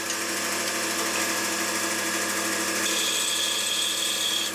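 Band saw running steadily with a steady hum, cutting wedge segments off a hardwood board.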